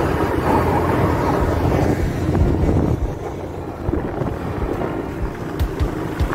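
Wind rushing over the microphone of a moving motorcycle, with the bike's engine running underneath. It eases a little about three seconds in.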